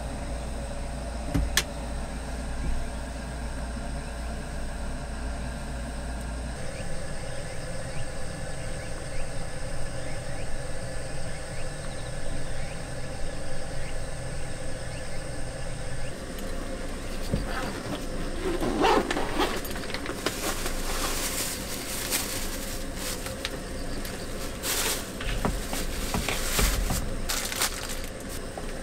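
Plastic food packaging crinkling and rustling in quick irregular bursts through the second half, as it is handled and opened. Underneath is a steady background ambience with faint insect sound.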